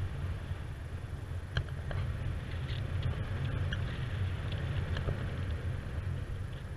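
Wind buffeting an action camera's microphone during a paraglider flight: a steady low rumble, with a few faint short ticks.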